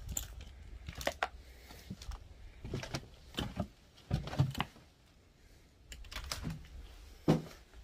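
Footsteps crunching and scuffing on grit and broken debris over cracked concrete: an irregular series of short clicks and scrapes, with a low rumble now and then.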